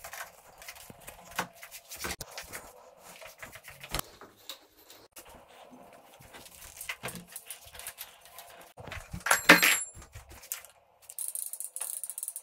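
Scattered light clicks, knocks and rattles of mountain bike parts and tools being handled, with a louder metallic clatter about nine and a half seconds in. A steady high hiss comes in near the end.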